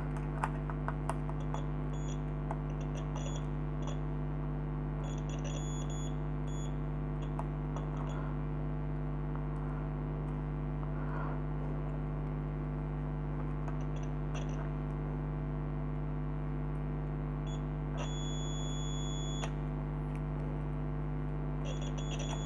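Digital multimeter's continuity buzzer beeping as the probes are touched to the conductors of an AC power cord. There are several short beeps and one longer beep of about a second and a half, which shows the cord's wires are continuous. A steady low electrical hum runs underneath.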